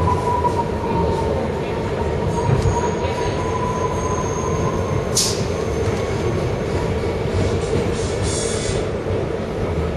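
R160 subway train running on the track, heard from inside the front cab as it approaches a station: a steady rumble with a high whine held throughout, and a short hiss about five seconds in.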